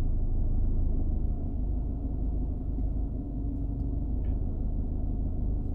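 Car cabin noise while driving: a steady low rumble of engine and tyre noise, with a faint brief tone partway through.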